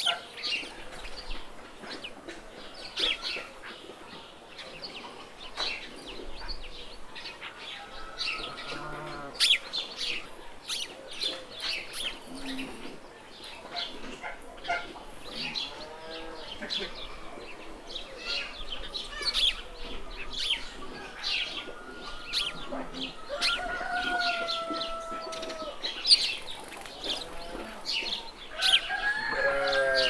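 Farmyard ambience: small birds chirping constantly, with chickens clucking and calling now and then, including a couple of longer drawn-out calls later on.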